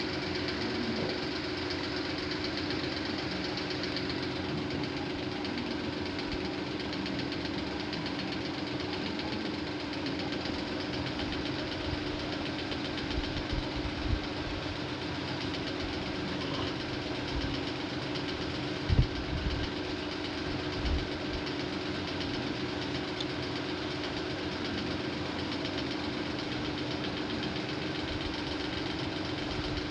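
A motor running steadily, with a few brief low thumps in the middle stretch.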